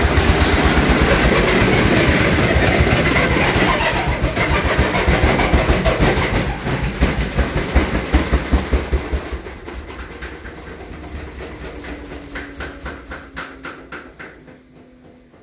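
Samsung front-load washing machine in its spin, knocking fast and hard in a steady rhythm, the sign of a drum badly out of balance. About ten seconds in the knocking drops in level and slows as the drum spins down, and a falling whine comes in near the end.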